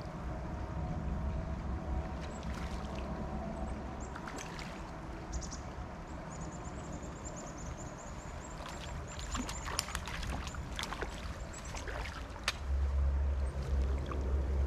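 Shallow stream water running and sloshing around a wading angler's legs as a hooked fish is played, with a run of rapid high ticks around the middle and sharp splashes and clicks later on. A loud low rumble sets in near the end as the fish is brought to the net.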